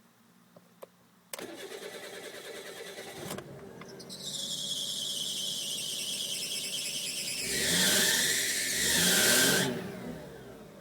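Suzuki Wagon R (MC21S) 660 cc three-cylinder engine cranked on the starter and catching. About a second after it fires, a loud high-pitched squeal starts from the belt-driven accessories and carries on through two revs, then cuts off suddenly. A new fan belt has not cured this start-up squeal, which the owner suspects is a pulley.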